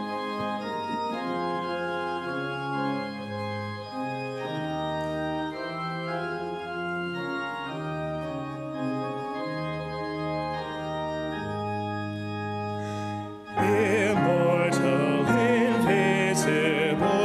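Church organ playing a hymn introduction in sustained chords over a bass line that steps from note to note. About thirteen and a half seconds in, it swells louder and voices join in singing with vibrato.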